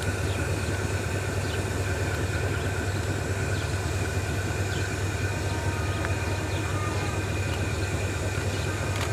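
Diesel-electric locomotive A-223 (General Electric, Caterpillar-powered) idling at a standstill: a steady low engine hum.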